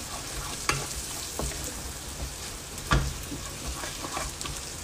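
Wooden spatula stirring sliced shallots and petai beans frying in oil in a pan: a steady sizzle with a few scrapes and knocks of the spatula against the pan, the loudest about three seconds in.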